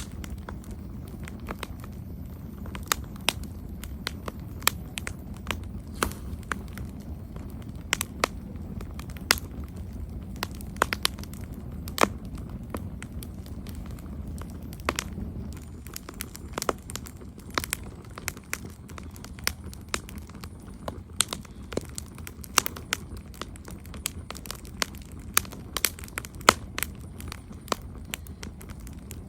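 Campfire crackling: irregular sharp pops and snaps of burning wood over a low, steady rumble, the pops coming more often in the second half.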